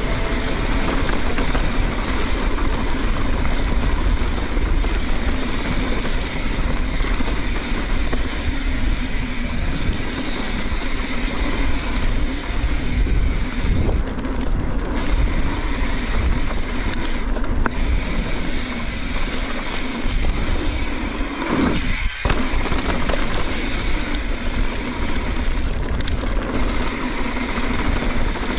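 Mountain bike ridden fast down a dirt jump trail, heard from a GoPro: steady rumbling wind noise on the microphone mixed with tyre noise on dirt and drivetrain rattle. The high hiss briefly drops out a few times.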